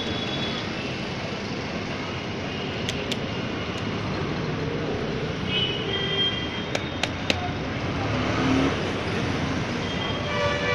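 Steady roadside traffic noise, with a few sharp clicks about three seconds in and again about seven seconds in.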